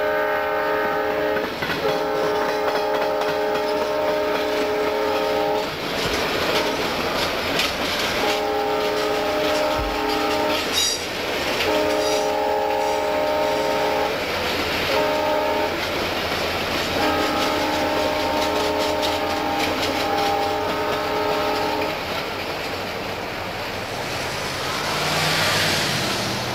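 Passing passenger train's locomotive sounding a chime horn in a series of blasts that ends in the long, long, short, long grade-crossing signal, over the steady clickety-clack and rumble of the cars. The wheel noise swells near the end as the last car goes by close to the track.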